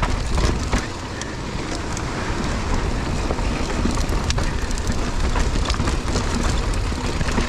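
Mountain bike rolling over a rocky dirt trail: a steady low rumble of tyres on rock and gravel, with scattered clicks and knocks from stones and the bike rattling.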